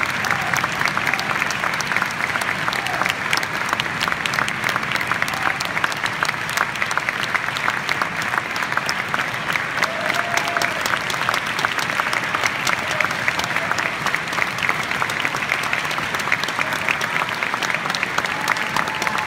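Concert hall audience applauding steadily: dense, continuous clapping from many hands.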